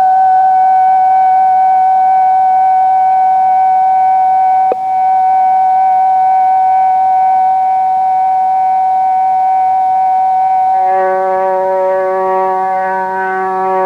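A steady musical drone, one sustained tone held unchanged, broken by a single brief click about five seconds in. Near the end a lower chord of several held notes swells in beneath it.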